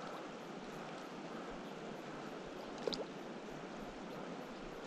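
Shallow river water flowing and rippling over a gravel bed, a steady rushing hiss, with one brief tick about three seconds in.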